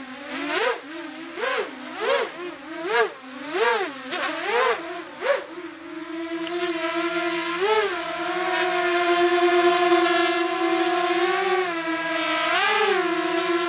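Racing quadcopter's four brushless motors spinning KingKong 5040 props, whining: about seven quick throttle blips, each a rise and fall in pitch, then a steady hover whine with two brief surges.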